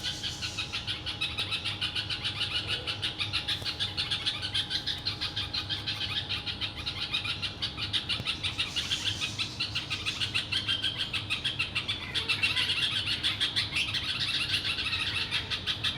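A flock of small birds chirping continuously, many quick chirps overlapping into a busy chatter, growing louder about three-quarters of the way through.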